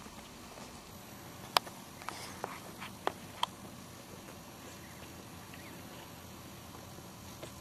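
Newborn puppies giving a few short squeaks and clicks, about one and a half to three and a half seconds in, the first the loudest, over a faint steady background.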